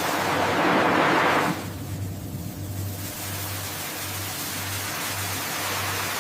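A rush of water, like a wave surging, for about a second and a half, then a low engine hum throbbing about twice a second.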